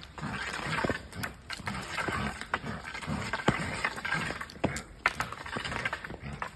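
Irregular footsteps and scuffs on a concrete pavement, with a small dog scampering close by.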